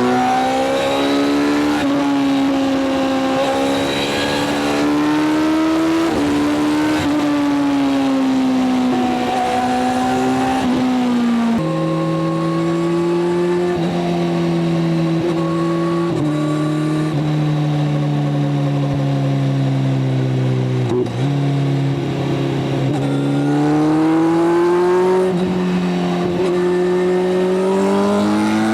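Kawasaki inline-four motorcycle engine running at speed. Its pitch drops in two steps, about a third of the way in and again about halfway, as it shifts up, then rises steadily as it accelerates near the end.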